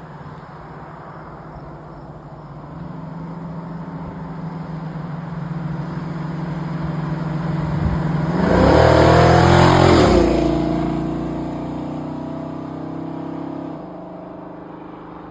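1971 Ford Mustang Mach 1's V8 engine running, growing louder over several seconds to a loud rev around the middle, then easing off and dropping away sharply near the end.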